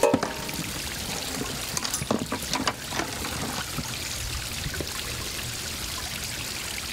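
Running water trickling steadily, as from a garden pond or small stone water feature. A few light knocks and rustles come about two to three seconds in, as a paper chart is handled and laid across the stacked books.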